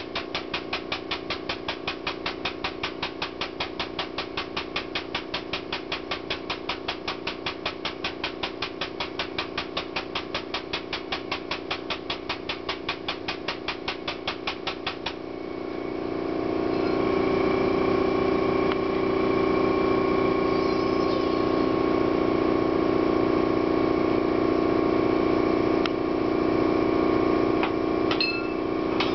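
Air-driven pump of an air/hydraulic bottle jack chattering in a rapid, even rhythm for about fifteen seconds, then stopping. A piston air compressor then starts up and runs steadily, with a few sharp clanks near the end as steel pipe is handled in the bender.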